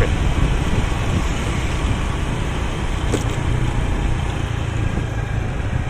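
Steady road noise from a moving vehicle on a city road: a low engine hum with tyre and traffic noise around it.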